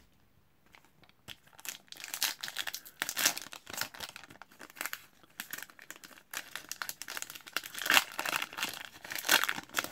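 Foil-lined hockey card pack wrapper torn open and crinkled by hand. Crackling and tearing start about a second and a half in and are loudest near the end.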